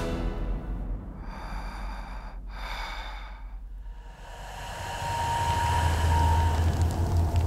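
Sound effects under an animated title card: a filtered whoosh of breathy noise, then a low drone that swells up about halfway through and holds.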